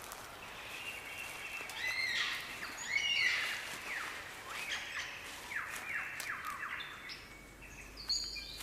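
Wild birds calling and singing: looping whistled phrases, loudest about three seconds in, then a run of quick downward-sweeping notes, and a higher whistle near the end.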